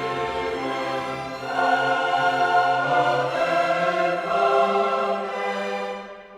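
Background classical music: a choir singing with an orchestra. It swells louder about a second and a half in and fades out near the end.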